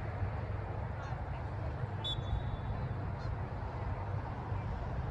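Steady open-air background noise at a soccer field, mostly a low rumble with an even hiss over it. About two seconds in, a short high thin tone sounds and fades within about half a second.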